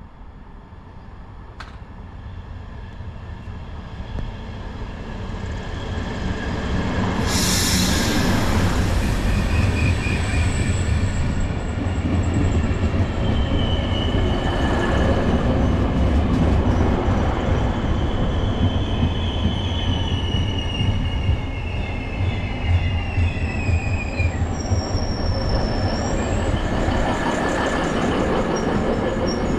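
Two coupled SN84 diesel railcars pulling in along the platform and braking to a stop, their engines' low rumble growing louder over the first several seconds. A brief sharp burst of noise comes about seven seconds in, then a high squeal from the brakes and wheels drifts slightly down in pitch for about ten seconds as the train slows.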